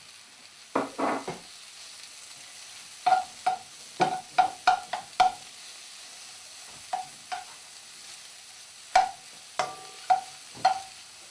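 Chicken pieces frying in a hot pan with onions and mushrooms: a steady sizzle. A utensil knocks against the pan about a dozen times as the food is stirred and turned.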